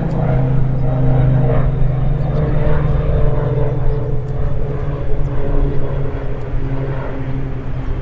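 Steady low mechanical drone at a constant pitch, like an engine or motor running, loud and unbroken.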